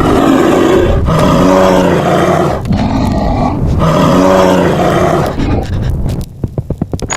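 A tiger roaring in several long, loud calls, then from about six seconds in a quieter run of short, rough pulses.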